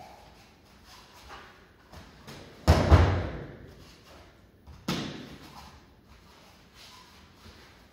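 Two heavy thuds of a training dummy being thrown down onto the floor, about two seconds apart, the first the louder, each echoing away over about a second.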